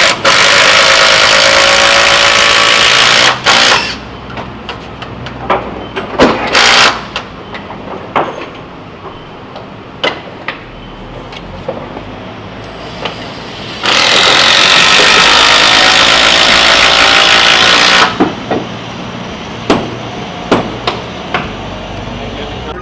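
Two long, loud hisses of about four seconds each, one at the start and one about fourteen seconds in, with scattered sharp knocks and taps of tools on wood in between while a steam-bent white oak frame is worked into the hull.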